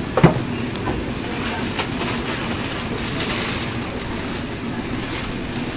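Vegetables stir-frying in an iron wok over a gas burner, with the burner running and the food sizzling. A loud ringing clank of the metal ladle against the wok comes about a quarter-second in, and a few lighter ladle scrapes and clinks follow.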